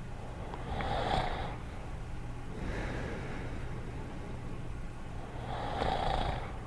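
Cartoon dog character snoring quietly: two snores about five seconds apart with a softer, airier breath between them, over a steady low hum.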